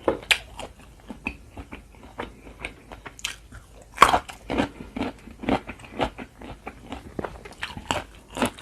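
A person chewing and biting crunchy food close to the microphone: irregular crunches with a sharper, louder bite about four seconds in.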